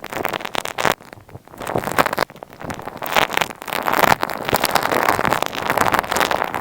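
Close-miked ASMR crackling and scratching, made by rubbing and tapping directly on earphone microphones: a dense stream of tiny clicks and rustles that eases briefly about a second in, then runs on steadily.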